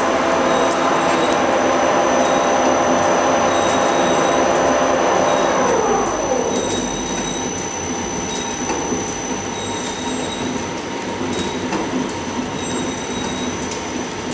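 Automatic packaging machine running, its drive giving a steady multi-tone whine with faint intermittent mechanical clicks. About six seconds in the whine slides down in pitch and the machine runs a little quieter.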